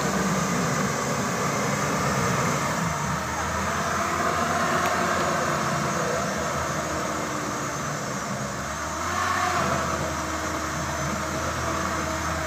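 Engine of a loaded off-road 4x4 running hard under load while its wheels spin in loose, soft dirt on an uphill track: the vehicle is bogged, sinking under its 700–800 kg load. The engine note picks up and gets a little louder about nine seconds in.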